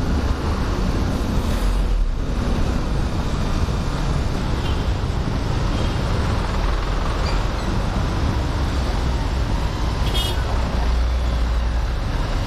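Road traffic heard from a moving motorcycle on a wet road: a steady low rumble of engines and tyres among buses and trucks, with a short sharp high sound about ten seconds in.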